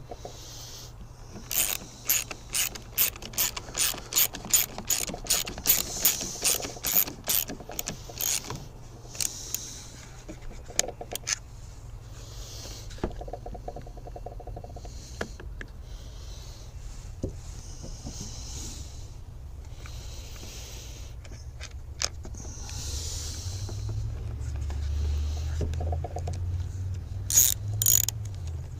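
Hand ratchet clicking in a quick run of about two to three clicks a second as bolts are driven in and tightened during chainsaw reassembly, then scattered clicks and knocks of handling the tools and parts.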